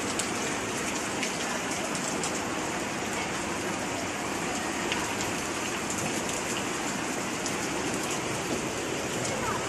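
Steady rushing water: a dense, even hiss with scattered small ticks, unbroken throughout.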